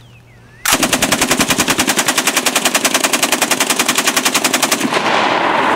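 Soviet DP-28 light machine gun in 7.62×54R firing full auto from the shoulder: one long burst of about four seconds, roughly ten shots a second, starting a little under a second in. After the burst stops the sound trails off.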